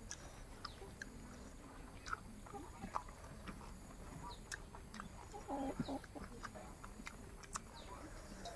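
Close-up eating sounds: wet chewing, lip smacks and fingers working rice and meat, heard as many small sharp clicks. A short low call comes about two-thirds of the way through and is the loudest sound.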